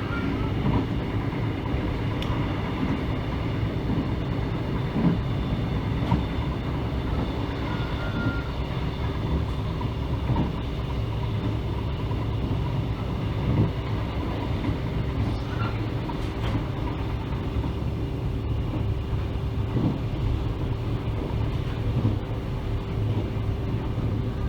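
Mugunghwa-ho passenger train running along the line: a steady rumble with a few steady tones and occasional faint knocks from the wheels on the rails.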